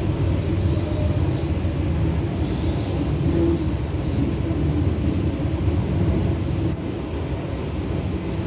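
EP2D electric multiple unit train running along the track, a steady low rumble. Brief hissing noise comes in about half a second in and again around three seconds.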